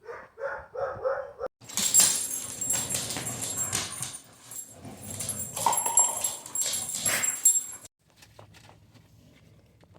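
A dog vocalizing: a few short whines, then several seconds of louder, rougher dog noise that cuts off suddenly about two seconds before the end.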